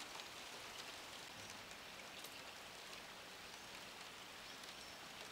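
Light rain falling on the surface of a lagoon: a faint, steady hiss with scattered small drop ticks.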